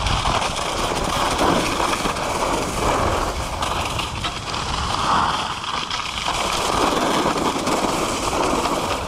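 Skis sliding down a groomed slope, the edges scraping the packed snow in swells that rise and fade with each turn, over a steady rush of wind on the microphone.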